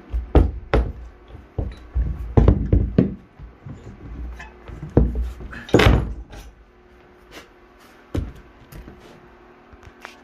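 Metal clanks and knocks from a cast-iron bench vise as its handle is worked loose and a bent steel piece is taken out of the jaws. The knocks come irregularly, the loudest a little past halfway, with one last knock later on.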